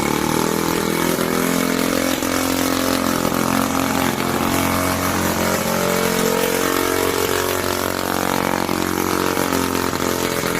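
Small petrol engine of a toy tractor running steadily with the clutch engaged, its pitch wavering slightly.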